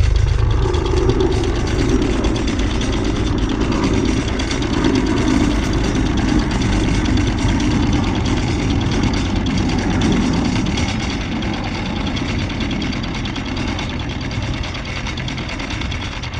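Anchor windlass paying out chain over a sailboat's bow roller, running steadily over a constant low rumble, then easing off after about eleven seconds.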